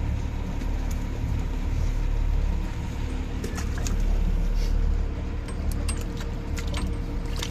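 A fishing boat's engine running with a steady low rumble and a faint hum. From about halfway through come light, sharp clicks and rattles as a caught fish and its hook are handled and the fish goes into a bucket of water.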